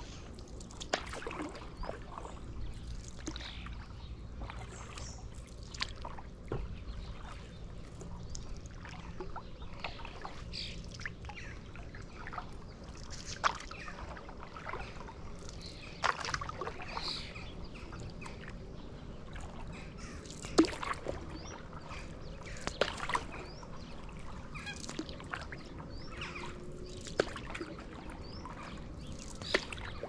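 Stand-up paddle board paddle dipping and pulling through calm river water, with a splash and trickle of drips every few seconds. Birds chirp faintly in between.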